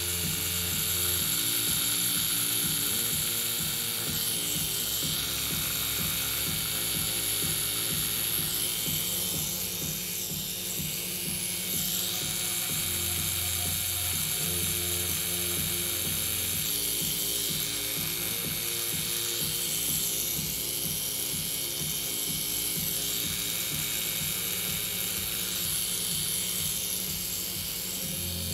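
Tattoo machine running steadily as the needle works colour into skin, over background music.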